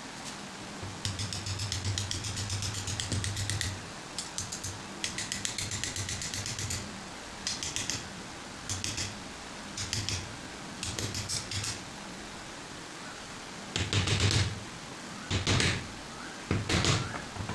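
A metal hand tool scraping and cutting back and forth across a hardwood block, in runs of rapid scratchy strokes. There is one long run, then several short ones, then three louder strokes near the end.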